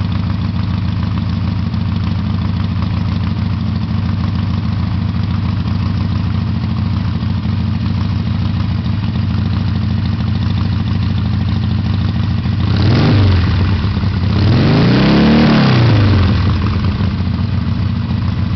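Harley-Davidson V-twin motorcycle engine with Screaming Eagle exhaust pipes idling with a loud, steady beat, revved twice near the end: a short blip, then a longer rev that climbs and falls back to idle.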